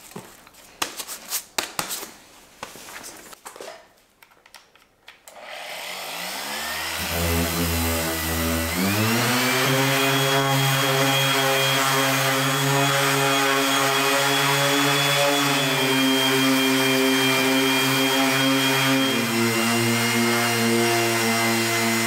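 A hook-and-loop sanding disc is pressed and patted onto a sander's pad, giving a few taps and rustles. About six seconds in, a corded random orbital (DA) sander starts, its whine rising in pitch over a couple of seconds. It then runs steadily while sanding the primed widebody plug with 600-grit paper, its pitch shifting slightly near the end.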